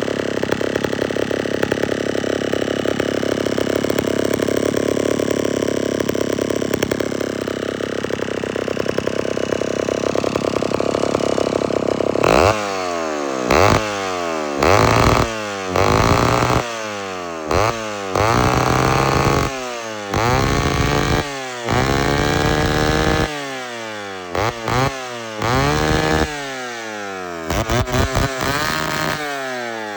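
Vintage Homelite 775G two-stroke chainsaw running steadily for about twelve seconds. It is then revved again and again, the pitch climbing quickly and falling back each time.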